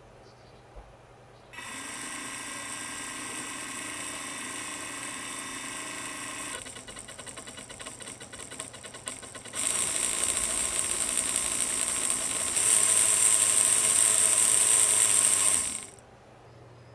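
Small encoder DC motor running under speed control, turning a pointer: it starts with a steady whine about a second and a half in, runs with a rapid rattle for a few seconds, then runs louder in two steps with a high whine before stopping about a second before the end.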